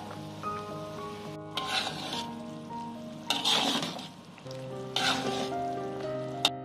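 A utensil stirring a thick, boiling stew in a metal wok: three scraping swishes, starting about 1.5, 3.3 and 5 seconds in, and a sharp tap near the end. Soft background music plays underneath.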